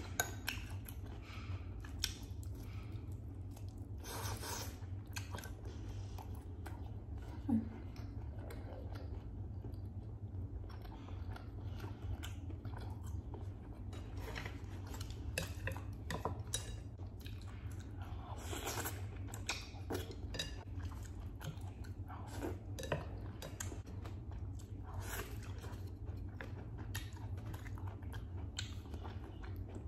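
Close-miked chewing of roast chicken: a steady run of wet mouth clicks and smacks, with the odd light clink of wooden chopsticks against a glass dish. A low steady hum sits underneath.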